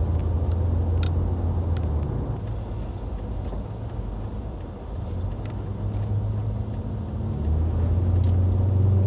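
Car engine and tyre noise heard from inside the cabin while driving on packed snow: a low drone that eases off about two seconds in, then comes back louder with a short rise in pitch near the end, with a few scattered clicks.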